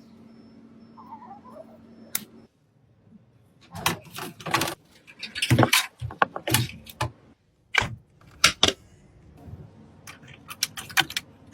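Computer parts being handled and fitted together, giving irregular sharp clicks, taps and rattles that come thickest from about four seconds in.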